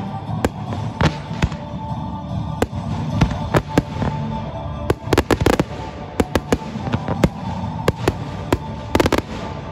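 Fireworks display going off: a rapid, irregular series of sharp bangs and crackling reports from aerial bursts and ground-fired comets. The reports come in dense clusters about five seconds in and again near the end, over continuous music.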